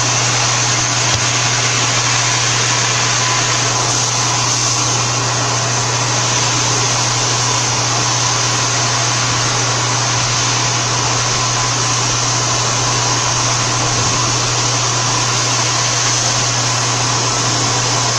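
CNC milling machine running steadily while roughing a part in UHMW plastic: an even, unbroken mechanical hum with a constant hiss over it.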